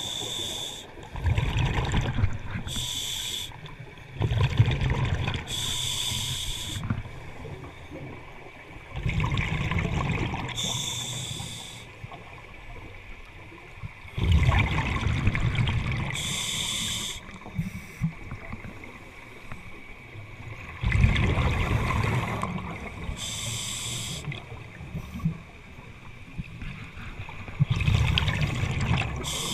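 Scuba diver breathing through a regulator underwater: each breath is a short hiss of inhalation and a longer rumbling rush of exhaled bubbles, one breath every five or six seconds.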